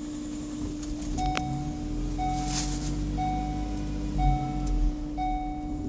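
Ford Transit van's warning chime beeping about once a second over a steady hum, sounding while the new van won't start. A short hiss comes about halfway through.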